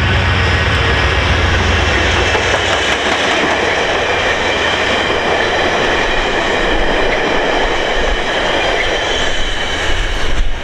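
A VIA Rail passenger train passing at speed: stainless-steel coaches rolling by with wheels running on the rails in a steady, loud rush. The low rumble of the P42DC diesel locomotive fades over the first two or three seconds, and the train noise stays loud after the last car has passed.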